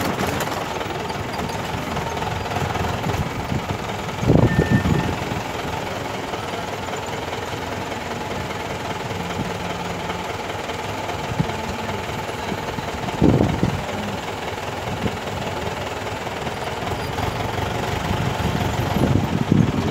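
Vehicle engine idling, heard from inside the cabin while the vehicle waits at a toll booth. Two short louder low sounds come about four and thirteen seconds in.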